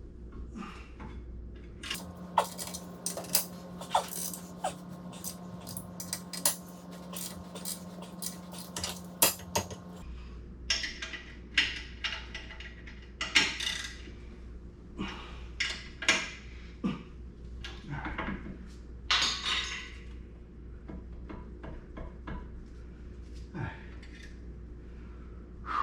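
Metal brake parts and hand tools clinking, tapping and knocking together in irregular short strikes during caliper work, with a steady hum under the busiest stretch from about two to ten seconds in.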